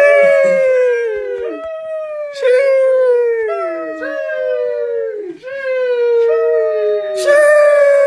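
The 'sheesh' meme exclamation repeated over and over: a voice holding a long, high 'sheeeesh' that opens with a hiss and slides down in pitch, each take overlapping the next, a new one starting about every second.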